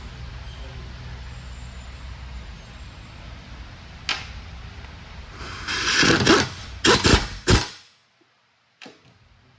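Steady low shop hum, then a sharp click about four seconds in, followed by a flurry of loud metallic handling noises, with one long rattle and two short knocks, as transmission shift-housing parts are handled on the bench.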